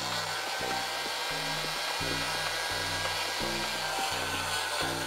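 Hot air gun blowing steadily on desiccant beads from a BMW air suspension compressor's air dryer, drying them out. Low background music plays under the steady blowing hiss.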